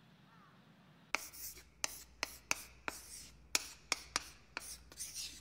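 Pencil writing on paper: quick scratching strokes, about three a second, starting about a second in.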